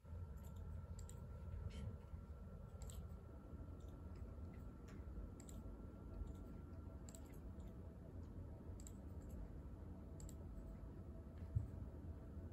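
Faint, irregular clicking from working at a computer, over a steady low room hum, with a soft bump near the end.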